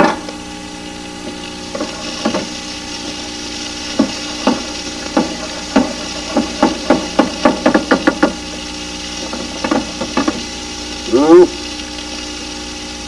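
Wooden spoon stirring and knocking against stainless steel frying pans of vegetables and shrimp: a run of quick knocks, about four a second, in the middle, over a steady hum. A short vocal exclamation near the end.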